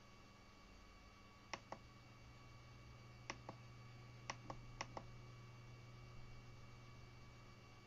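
Keys on a CNC controller's membrane keypad being pressed: four presses, each a faint double click of press and release, spaced a second or two apart. A steady low hum sits underneath.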